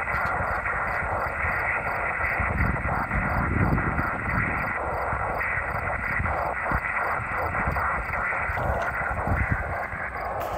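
Yaesu transceiver on upper sideband giving receiver audio: a steady hiss held to the voice band, carrying the distant station's rain-scatter signal, which the operator copies as 5 and 9 rain scatter.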